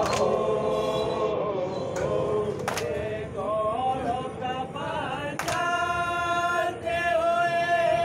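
Men chanting a noha, a Shia mourning lament, together with long held, wavering notes. A sharp slap of matam (chest-beating) comes about every three seconds.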